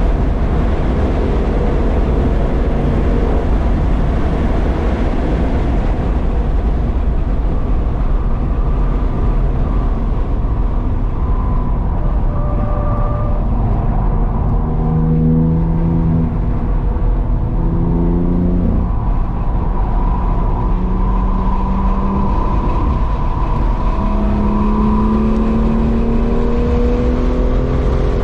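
Car engine heard from inside the cabin while lapping a race track. The engine note climbs in pitch several times under acceleration and falls back at each shift or lift, under steady heavy road and wind noise.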